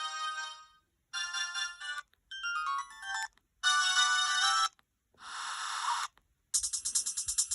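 LG VX6100 flip phone playing ringtone previews one after another as the ringtone list is scrolled: short electronic melodies, each cut off after about a second and followed by a brief gap before the next starts. A faster, pulsing tone begins near the end.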